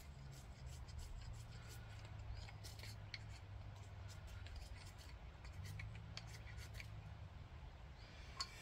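Knife blade shaving thin curls off a dry wooden stick to make a feather stick: a string of faint short scrapes, with one sharper click near the end.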